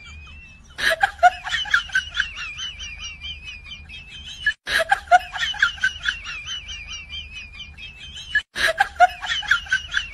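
A high-pitched chirping sound clip, rapid wavering strokes, played three times in a row with abrupt cuts between the runs.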